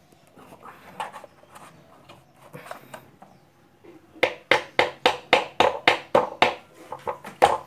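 Dry pressure-washer pump clacking as its shaft is turned by hand, stiff because its oil has leaked out. A few faint clicks come first; about four seconds in, a regular run of sharp metallic clacks starts, about four to five a second.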